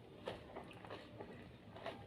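Close-up eating sounds of a person chewing jengkol with rice: a few short wet smacks and clicks of the mouth.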